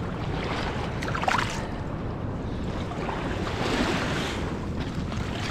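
Small waves lapping on a pebble riverbank under steady wind noise on the microphone, with two brief splashy swishes, one about a second in and one near four seconds in.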